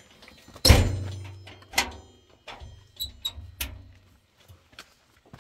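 Rusty sheet-metal shed door banging shut with one loud clang under a second in, followed by a low ringing that fades, then several lighter knocks and rattles of the door and its frame.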